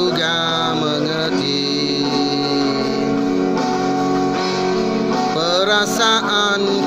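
Malay rock song played back from a television: a band with electric guitar, and a male singer heard in the first second and again near the end.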